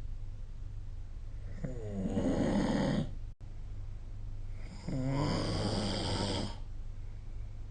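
A person snoring: two long snores about three seconds apart, each lasting about a second and a half, over a steady low hum.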